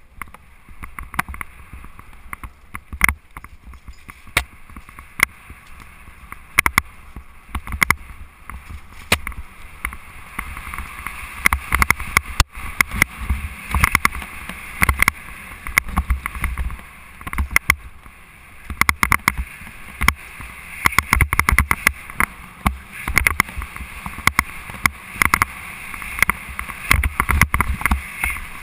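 Mountain bike rattling and clattering down a rough dirt trail at speed, with frequent sharp knocks as it hits bumps and roots, over a rumble of wind buffeting the microphone.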